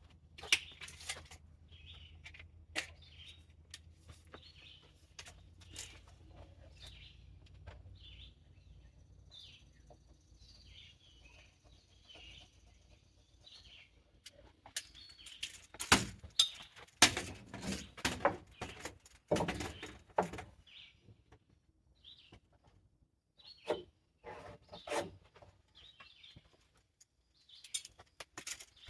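Birds chirping, with scattered sharp knocks and clatter that bunch together about halfway through, and a faint low hum in the first half.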